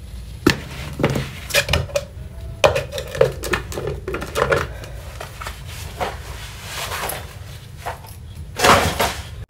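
Scattered knocks and clatters, with a louder, briefer noisy burst near the end.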